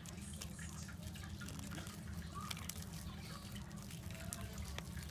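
Homemade glue-and-detergent slime being squished and stretched by hand, giving faint wet clicks and squelches over a low steady hum.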